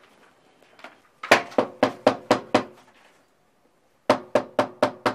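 Knocking on a wooden front door: a run of six quick knocks at about four a second, a pause of about a second and a half, then another quick run of five.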